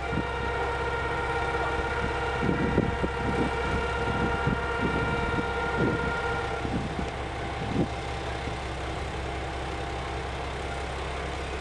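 JR Shikoku 2000-series diesel railcar idling at a standstill, a steady low engine rumble. A steady tone of several pitches sounds over it for the first six or seven seconds, and a run of short knocks comes in the middle.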